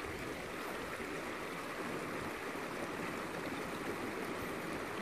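Shallow mountain stream running over rocks, a steady rushing of water with no breaks.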